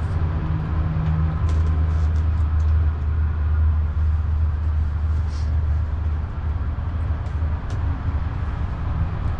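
Steady low motor drone filling the motorhome, with a few light clicks of forks and plastic takeout containers on top.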